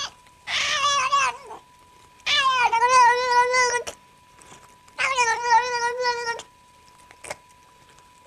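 A cat yowling: three long, wavering calls, each lasting a second or more, with short pauses between them.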